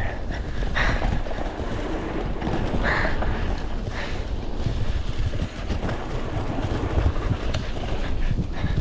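Wind buffeting an action camera's microphone as a full-suspension mountain bike rides fast down a wet, muddy trail, with tyre and trail noise underneath and a few brief hissing bursts about one, three and four seconds in.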